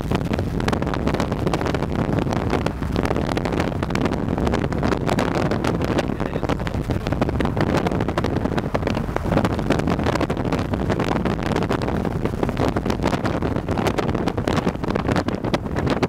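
Wind buffeting the microphone over the rushing road noise of a moving vehicle, a steady rush with constant crackle.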